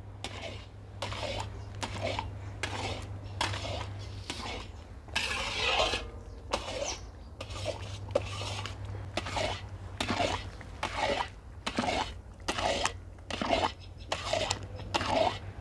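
Metal scraper (khurchana) scraping and stirring thick, bubbling carrot halwa around the bottom and sides of a large karahi, in repeated strokes about two a second, with one louder, longer scrape about five seconds in. The constant scraping keeps the thickening halwa from sticking to the pan.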